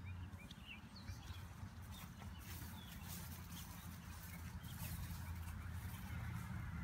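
Birds chirping now and then, faint, over a low steady hum.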